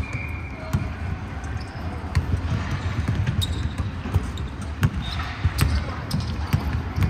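Basketball bouncing on a hardwood gym floor, mixed with the thuds of players' footsteps. The hits come at an uneven pace.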